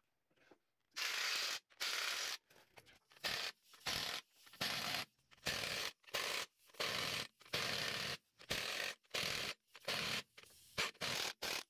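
A socket tool tightening suspension bolts on a front axle's radius-arm brackets: a run of about fifteen short, rasping bursts, roughly one every 0.7 s, starting about a second in.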